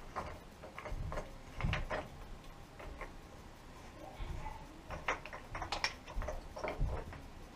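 Irregular light clicks and taps of tap parts being handled and screwed back together, with a few dull low knocks.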